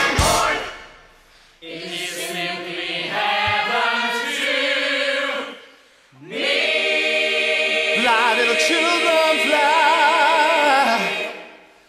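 Musical theatre cast singing two long held choral chords, each swelling in and then fading away. A solo voice wavers with wide vibrato above the second chord.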